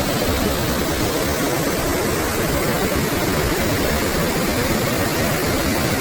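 Loud, steady rush of powerful falling or running water, a dense, unbroken noise with no let-up.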